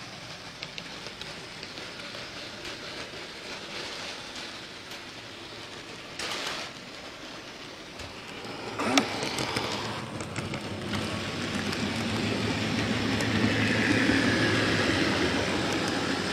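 Model railway train running along its track, heard from a camera riding on the train: a steady rolling rattle of small wheels on rail, with scattered sharp clicks and a loud click about 9 seconds in, growing louder near the end.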